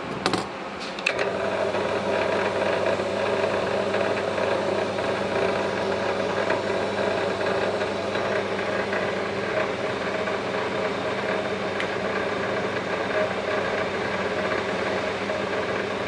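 Scrap wire stripping machine's 1 HP electric motor running steadily with a mechanical hum and light rattle, after a couple of clicks about a second in.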